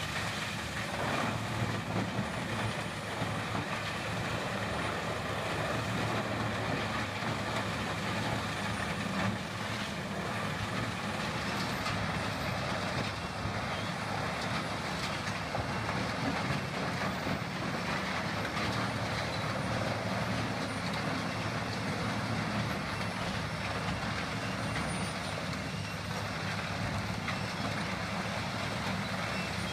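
Vermeer HG4000 horizontal grinder running under load, its diesel engine and hammermill grinding waste wood: a steady, dense mechanical noise that holds at an even level.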